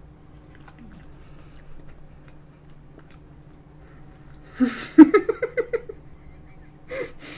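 Soft chewing of spoonfuls of tiramisu. About five seconds in, a breathy burst and then a short run of quick laughing 'ha-ha' pulses, the loudest sound here, followed by another sharp breath shortly after.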